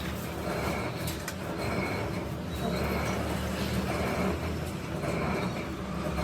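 Metalworking machine tool running under cut on a compressor crankshaft. A steady low hum carries a scraping, whirring sound that repeats somewhat under twice a second, in time with the workpiece turning.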